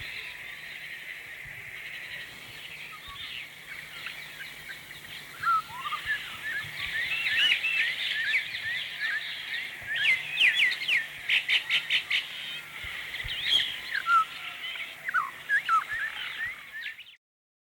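Recorded chorus of small birds chirping and twittering over a steady high hiss, the calls getting busier after a few seconds, with a quick run of repeated notes about two-thirds of the way through. It cuts off suddenly just before the end.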